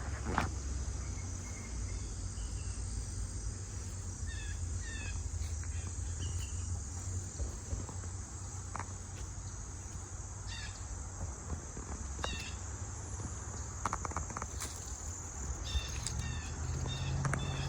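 Woodland ambience: birds chirping in short groups of quick high notes every few seconds, over a steady high insect drone and a constant low rumble. A few light clicks come about two-thirds of the way in.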